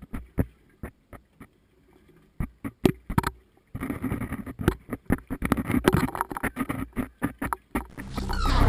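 Irregular drips and clicks of water, turning into a denser splashing crackle about four seconds in. Music starts to come in near the end.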